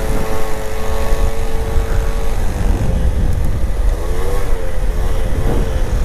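Motor scooter under way, with heavy wind noise buffeting the microphone. The engine's steady note shows under the wind, drops away about two seconds in, then rises and falls again near the end.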